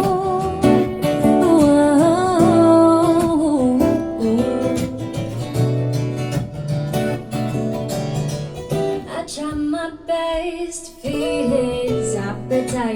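A recorded song played back through Marten hi-fi loudspeakers in a room: acoustic guitar with held sung notes in the first few seconds, then a guitar passage without vocals.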